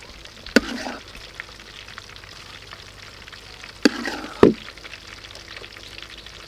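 Steady hiss of food frying in oil, with sharp clinks of a utensil against a glass bowl as batter is spooned in: one clink about half a second in, another near four seconds, and a louder knock just after it.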